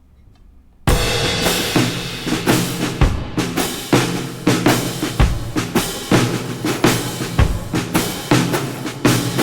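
Background music with a drum-kit beat, starting suddenly about a second in.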